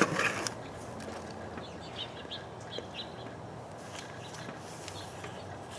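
Faint outdoor ambience with a few short, high bird chirps scattered through the middle, and a brief click right at the start.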